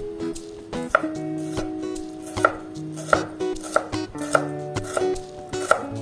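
Knife chopping on a cutting board, with about eight even strokes beginning about a second in, over light background music.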